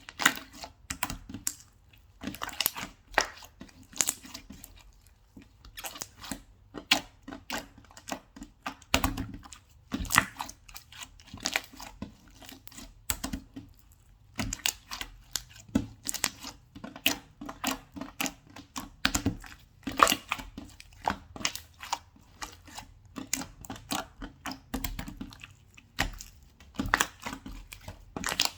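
Hands squishing and pressing slime, giving a dense run of irregular crackling clicks and small pops.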